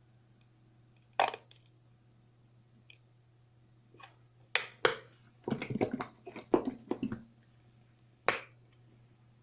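Handling noise from a plastic ketchup squeeze bottle: a few sharp clicks and taps, with a quick run of rapid clicks and crinkles in the middle.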